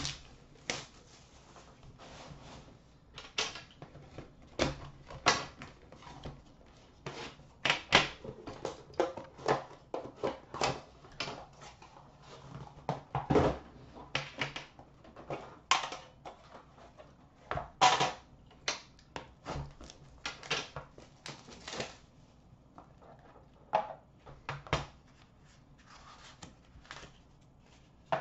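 Irregular clicks, taps and scrapes of Upper Deck The Cup hockey card packaging being handled and opened: the box slid out of its outer sleeve, the tin set down and worked on a glass counter, and the black inner card box opened near the end.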